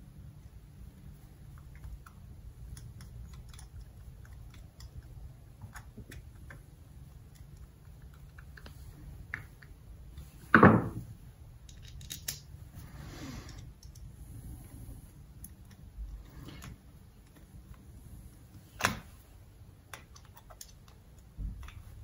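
Small clicks and taps of a small outboard carburetor and a screwdriver being handled on a workbench during reassembly, with a sharp knock about ten seconds in and another sharp click near the end.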